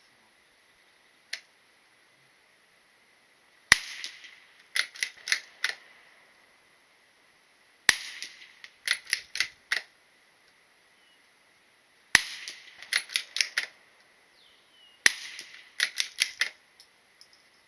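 Gunfire at a shooting range: four loud single shots about four seconds apart. Each is followed about a second later by a quick run of four or five quieter shots.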